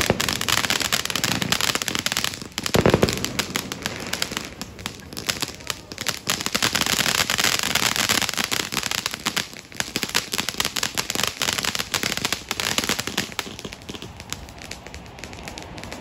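Ground firework fountain spraying sparks with dense, rapid crackling and popping, and one louder bang about three seconds in. The crackling thins out near the end as the firework burns down.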